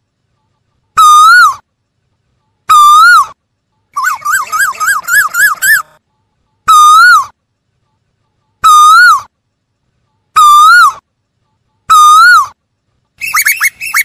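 Asian koel calling loudly: a two-part 'ko-el' call repeated about every two seconds, six times in all. About four seconds in comes a quick run of about eight rising notes, and another rapid run of calls starts near the end.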